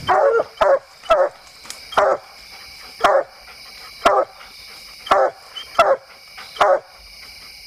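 Coonhound barking treed, looking up the tree: about nine loud, short barks at irregular gaps of roughly a second, with insects chirring steadily behind.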